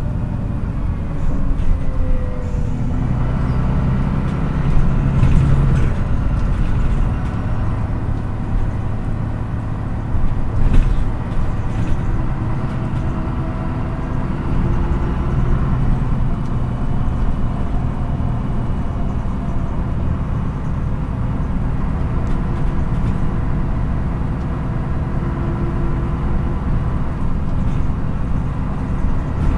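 MAN NÜ 313 city bus's diesel engine running under way, heard from inside the passenger cabin, its pitch rising and falling a few times as the bus speeds up and slows. A few short rattles or knocks come through, the loudest about eleven seconds in.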